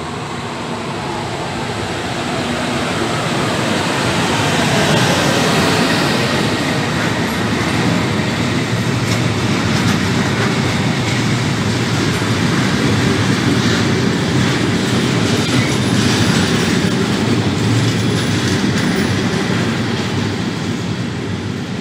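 Freight train passing, hauled by a Siemens Vectron electric locomotive. It grows louder and drops in pitch as the locomotive goes by about five seconds in. Then container wagons roll past with steady wheel noise and clicks over the rail joints.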